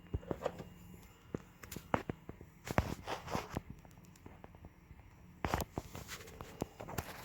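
Scattered knocks and clicks with a few short scuffing noises, and a louder knock about five and a half seconds in.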